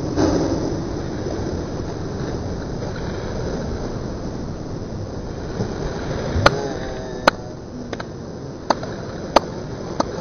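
Steady rush of river water around a whitewater kayak as it rolls back upright. From about six seconds in come a few sharp clicks.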